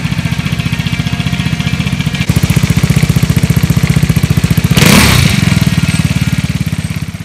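Vespa GTS single-cylinder four-stroke scooter engine running through a Polini aftermarket muffler, a steady low pulsing exhaust note that steps up in loudness about two seconds in. A brief rushing burst about five seconds in is the loudest moment.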